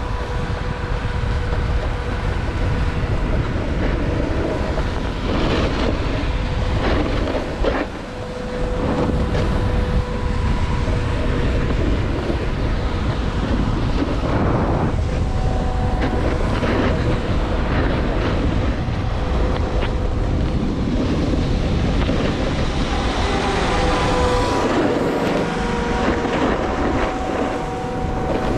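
Wind rushing over an action camera's microphone at riding speed, with a snowboard's edge scraping over packed snow in a series of turns. A faint steady hum sits underneath.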